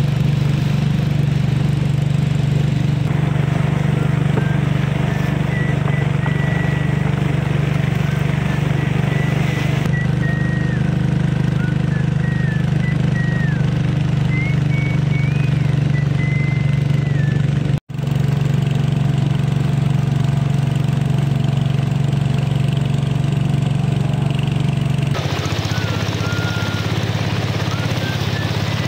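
A small engine running steadily, with a brief dropout about eighteen seconds in and a change in its tone near the end.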